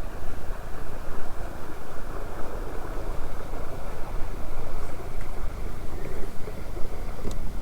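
Steady rushing noise with an uneven low rumble, typical of wind buffeting the microphone on an open boat.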